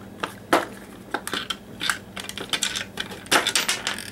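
Irregular sharp plastic clicks and knocks as the loosened clamshell housing of a Black & Decker Firestorm cordless drill is worked apart by hand, with a quick run of clicks about three and a half seconds in.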